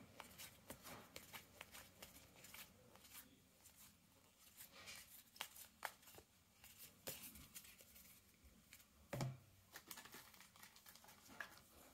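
Basketball trading cards being flipped through in the hands: faint, scattered card clicks and rustles, with a soft thump about nine seconds in.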